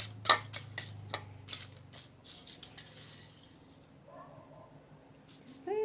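Small hard objects clicking and knocking against each other for about two seconds, one knock much louder than the rest. Right at the end a cat starts a loud meow that falls in pitch.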